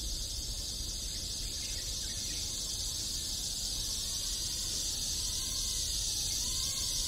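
Steady high-pitched chorus of insects chirring, with a fine rapid pulsing, over a low background rumble.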